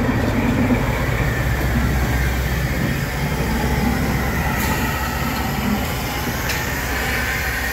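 BR Class 14 diesel-hydraulic locomotive D9520 running with a steady low engine rumble while standing coupled to a steam tank engine, with a couple of faint metallic ticks.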